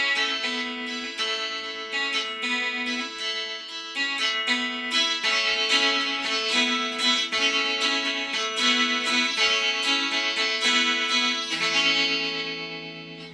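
Chinese-made Rickenbacker-copy electric guitar picking a melodic run of ringing notes with a bright, chimey tone, the last notes fading away near the end.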